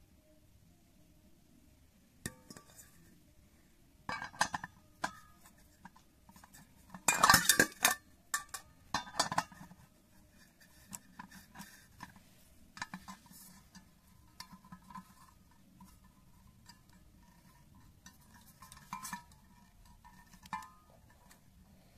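A stainless steel bowl clinking and scraping as it is handled with metal tools and a selfie stick is fitted through it: scattered knocks and rattles, loudest in a burst of about a second near the middle, then lighter ticks.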